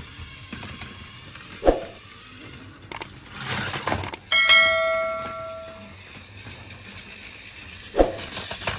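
A single metallic bell-like ring, struck sharply about four seconds in and fading away over a second and a half, with soft thumps and rustling around it.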